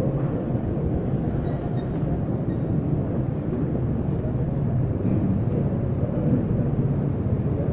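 Steady low rumble of a crowded hall, with indistinct murmur and movement of many people and no clear voice standing out.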